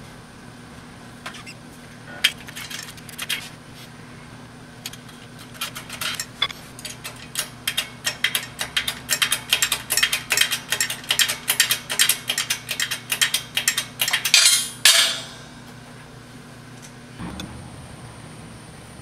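Hydraulic shop press with a 20-ton bottle jack being hand-pumped to push a press-fit bushing out of a steel part: quick metallic clicks and clinks, a few at first, then several a second for most of the time, ending in a short louder burst of noise. A steady low shop hum underneath.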